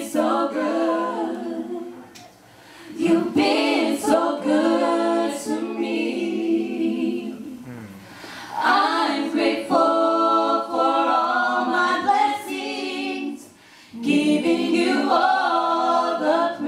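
A small vocal group singing a cappella in close harmony into microphones: long held notes in phrases, with short breaths between phrases about 2, 8 and 13.5 seconds in.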